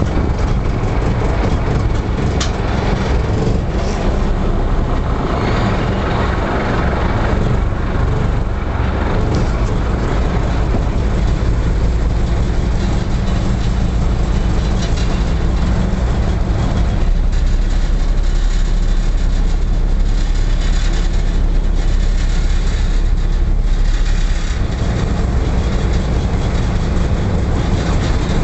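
Small passenger ferry's engine droning steadily while under way, with a steady rushing noise over it.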